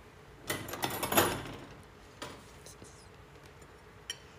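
Knocking and rustling handling noise, a dense burst about a second in, then single sharp clicks a little after two seconds and near the end.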